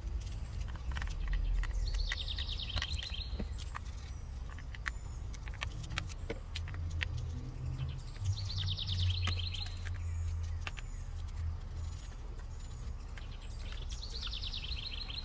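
A small wheel brush scrubbing a soapy alloy wheel, with scattered light clicks and wet scrapes. A bird sings a short, fast trill three times, about six seconds apart, over a steady low rumble.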